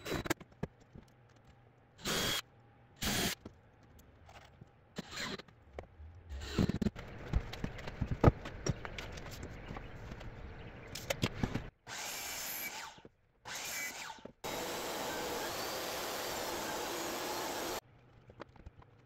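Cordless drill/driver driving screws into a 2x4 wooden frame in short bursts, between knocks and clatter of lumber being handled. Near the end a power tool runs steadily for a few seconds and stops sharply.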